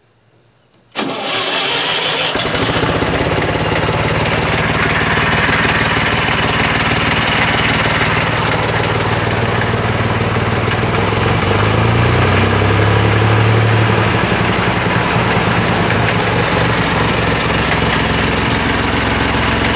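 Massey Ferguson 135 tractor engine starting about a second in, then running steadily, its speed shifting up and down briefly in the middle. It now runs after its clogged fuel tank outlet, which had been starving it of fuel, was cleared.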